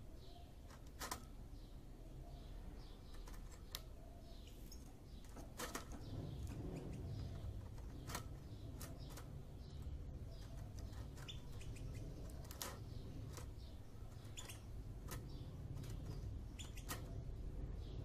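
Java sparrows in a cage: scattered sharp clicks and rustles as a bird pecks and tugs at dry palm-frond strips on the cage floor, with faint soft chirps.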